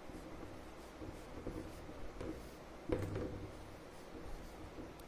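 Felt-tip whiteboard marker writing on a board: faint, irregular scratchy strokes, with a slightly louder stroke about three seconds in.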